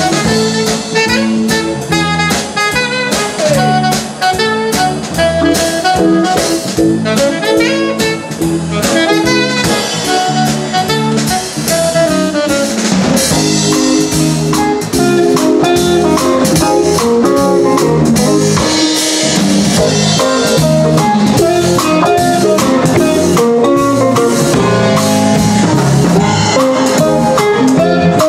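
Live band playing upbeat music on keyboard, electric bass, saxophone and drums, with a steady beat; the band gets fuller and louder about halfway through.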